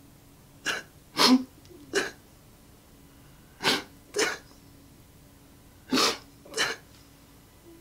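A man crying: seven short, sharp sniffling and gasping breaths, in clusters of two or three about half a second apart, with pauses of a second or more between the clusters.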